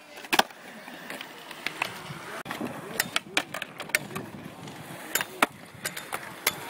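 Skateboard on concrete: a string of sharp clacks and knocks as the deck and wheels pop, strike and land on a concrete ledge and ground, spread through the whole stretch.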